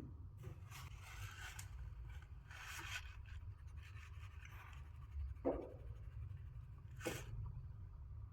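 Light scraping and rubbing in short spells, with two brief knocks in the second half, over a low steady hum.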